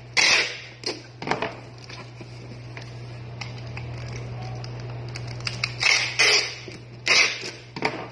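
Packing tape ripping off a handheld tape-gun dispenser as a cardboard box is sealed. There are short bursts of ripping in the first second and a half and again near the end, over a steady low hum.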